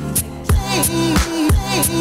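Background music with a steady beat and a sliding melodic line.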